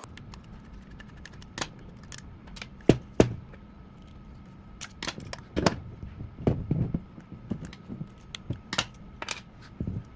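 Irregular small metal clicks and taps from a Honda car lock cylinder being taken apart by hand, with two louder knocks about three seconds in.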